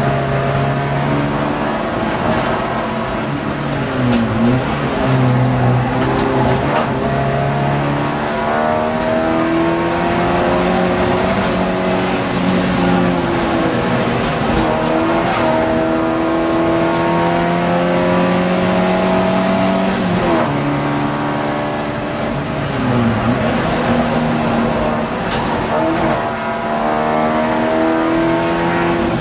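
Ford Fiesta XR2 race car's four-cylinder engine, heard from inside the cabin, pulling hard. Its pitch climbs steadily through each gear and drops sharply several times at gear changes and braking.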